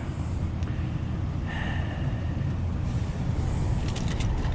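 Vehicle engine idling with a steady low rumble. A few light clicks and taps come near the end.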